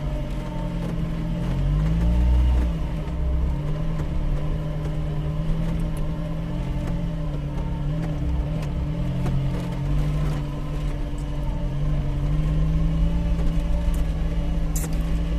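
A vehicle engine running steadily, its pitch wavering slightly, with a deep rumble underneath that comes and goes.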